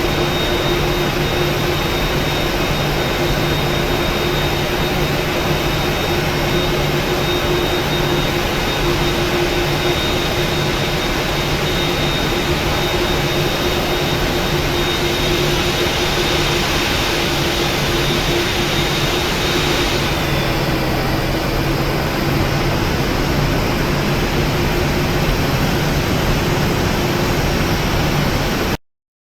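Boeing 737-900's CFM56 jet engines running steadily, heard from inside the cabin as a loud rush with a high whine and a low hum. A little past twenty seconds in, the high whine fades and the noise eases as the engines wind down, and near the end the sound cuts off abruptly.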